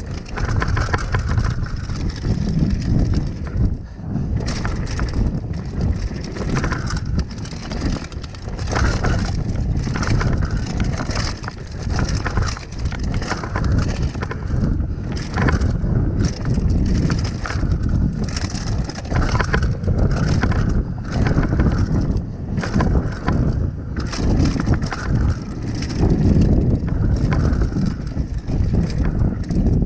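Mountain bike descending a dry dirt singletrack: knobbly tyres crunching over dirt and loose stones, with the bike rattling and clattering over bumps.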